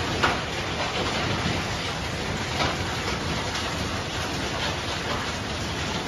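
Heavy rain and hail driven by strong, gusty wind: a dense, steady hiss with scattered sharper hits, one louder hit about a quarter second in.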